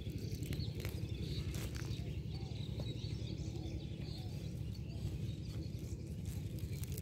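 Spinach leaves rustling and stems snapping as they are picked by hand, heard as scattered short clicks over a steady low rumble, with faint high bird chirps.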